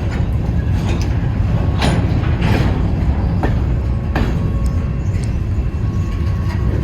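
Freight train cars rolling past: a steady low rumble with sharp wheel clacks over the rail joints about once a second.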